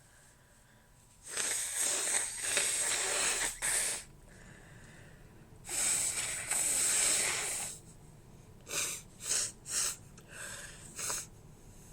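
A woman blowing her nose: two long, hard blows of a few seconds each, then five short, quick nasal bursts.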